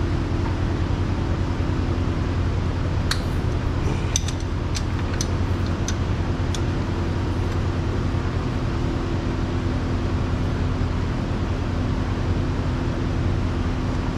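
A steady low mechanical hum, with a handful of sharp metallic clinks between about three and seven seconds in, as of hand tools knocking on metal under the truck.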